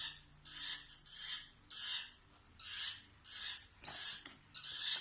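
A spoon scraping and stirring in a small cup of dry powdered bird hand-feeding formula: a rhythmic rasping at about two strokes a second.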